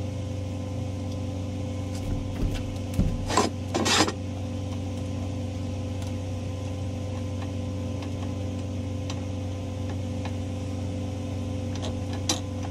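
Steady mechanical hum from running equipment, with two short, loud bursts of noise about three and four seconds in.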